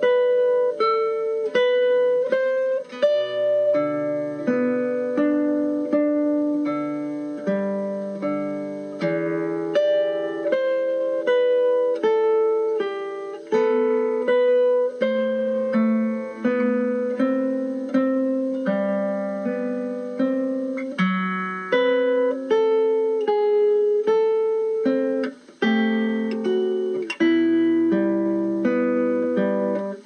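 Background music: a plucked guitar picking a gentle melody over bass notes, each note ringing and dying away.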